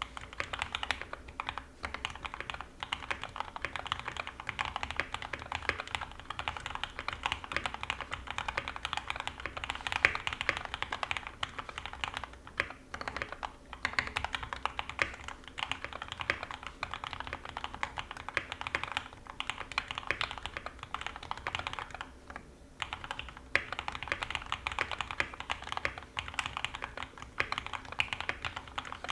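Continuous fast typing on an NK65 aluminum 65% mechanical keyboard with lubed and filmed Gateron Ink Black linear switches, PBT keycaps, an aluminum plate and neoprene foam dampening. Dense runs of keystrokes, with brief pauses about twelve and twenty-two seconds in.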